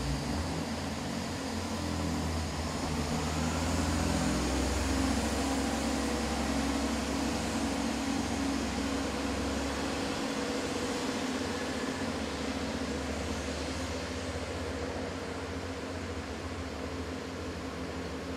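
Turbo diesel multiple unit pulling away under power, its underfloor diesel engines running with a low drone that climbs in pitch over the first few seconds and then slowly fades as the train draws off.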